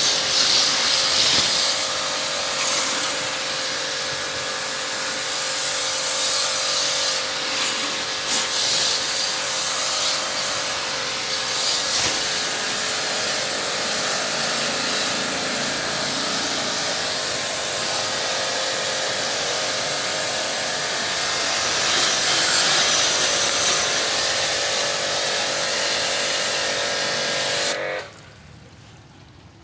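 Electric pressure washer running steadily with a spray hiss while washing down an air conditioner; it cuts out near the end.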